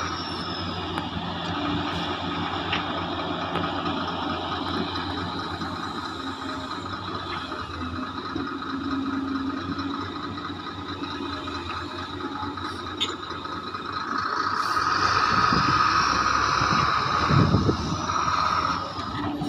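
Heavy hydraulic excavator working: the diesel engine runs steadily with hydraulic whine, swelling louder with a whine that rises and falls over the last few seconds, and a heavy low thud near the end.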